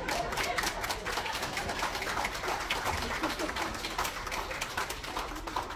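A roomful of wedding guests laughing and clapping, with many quick, irregular claps and scattered laughing voices.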